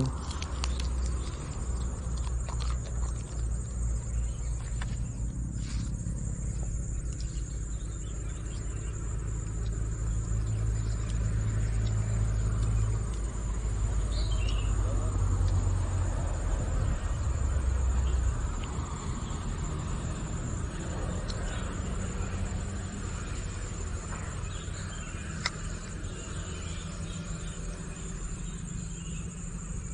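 Steady high-pitched insect chorus. A low rumble runs under it and drops away about two-thirds of the way through.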